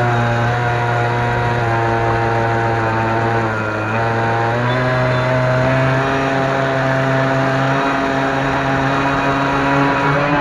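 RC model boat's motor running steadily under way. Its pitch sags a little and dips about four seconds in, then rises again and holds.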